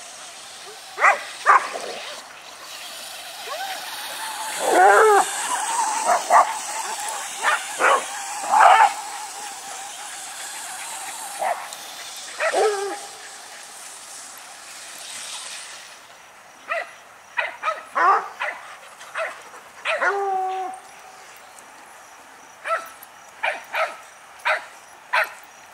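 Several dogs barking and yipping in short, scattered bursts, excited by chasing a remote-control car. Some calls are sharp high yips and others lower barks.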